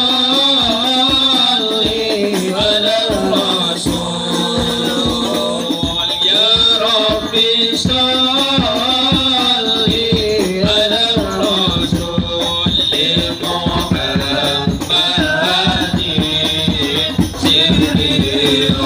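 Devotional group chanting by men's voices, amplified through a PA system, over a steady rhythmic percussion beat with a rattling, shaker-like edge.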